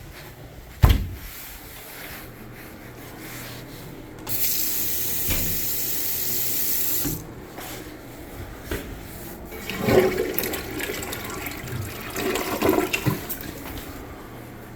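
A thump about a second in, then water running hard at a plumbing fixture for about three seconds before it cuts off suddenly, followed by a few knocks and rattles.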